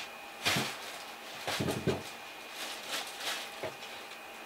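Handling noises on a wooden workbench: clear plastic packaging crinkling and items knocking lightly on the benchtop in a few short bursts, the busiest about a second and a half in.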